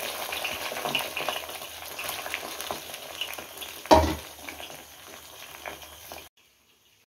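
Batter-coated mushroom pieces deep-frying in hot oil: a steady crackling sizzle, with a single knock about four seconds in. The sound cuts off suddenly near the end.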